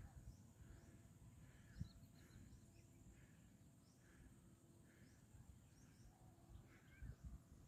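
Near silence: faint hilltop ambience with a low rumble and faint, short high chirps repeating throughout. There is one soft knock just under two seconds in.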